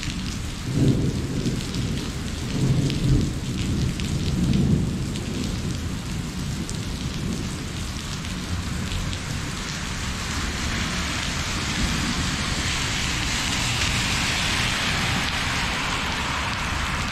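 Steady rain falling, with thunder rumbling in several swells over the first five seconds. The rain grows heavier in the second half.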